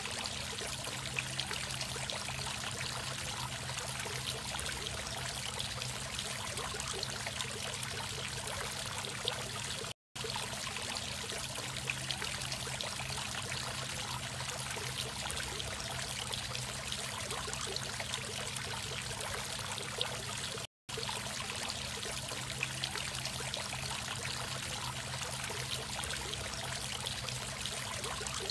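Two-tier cast-stone garden fountain running: water splashing and trickling steadily from the upper bowl into the lower basin, with a low steady hum underneath. The sound cuts out for an instant twice, about ten and twenty-one seconds in.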